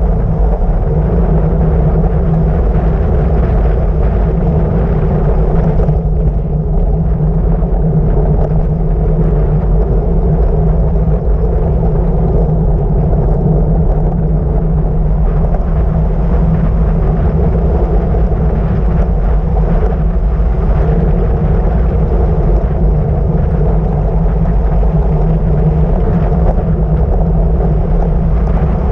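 Steady wind rush buffeting a handlebar camera's microphone during a fast road-bike descent, mixed with tyre noise on the asphalt; a loud, even, low-pitched rumble with no breaks.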